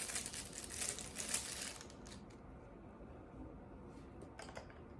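Crinkling, rustling handling noise for about two seconds, then a few faint clicks, as a battery is worked into the battery compartment at the bottom of a small digital camera.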